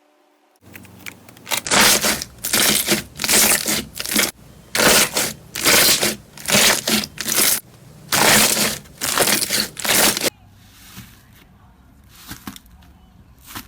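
Crunchy slime being squeezed and pressed, a dozen or so crackling, crunching squishes in quick succession, then only a faint crackle near the end.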